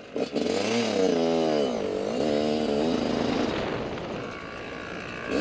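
Dirt bike engine revving up and down while riding on a dirt track, its pitch rising and falling several times before easing off about three and a half seconds in.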